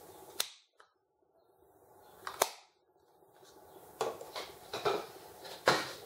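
Sharp wooden clicks and knocks of a laser-cut plywood box being handled: one click, another about two seconds later, then a quick run of knocks, ending with the loudest knock as the box is set down on a wooden tabletop.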